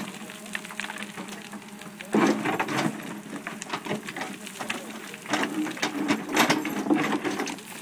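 Caterpillar 432E backhoe loader's steel bucket scraping and digging into stony soil, with irregular knocks and rattles of earth and stones falling, over the machine's diesel engine running steadily. The loudest clatters come about two seconds in and again near six and a half seconds.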